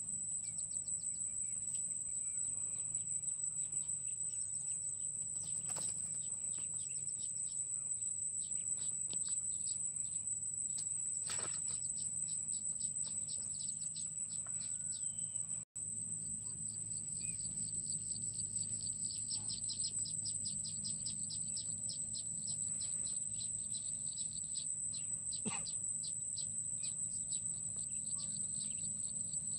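Insects keep up a steady high-pitched drone, with fast chirping trills and scattered bird chirps over it. The sound drops out for an instant about halfway through.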